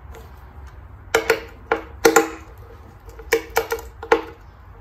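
Socket and extension bar clinking on the windage-tray bolts and sheet-steel tray of a Jaguar V12: about nine sharp metal clicks in irregular clusters, each with a brief metallic ring.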